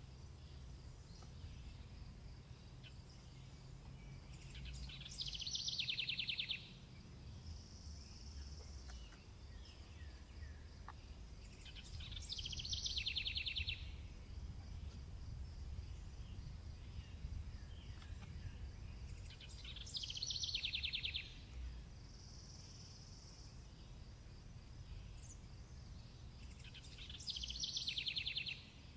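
A songbird repeating a short, rapid trill about every seven seconds, four times, over a faint low rumble.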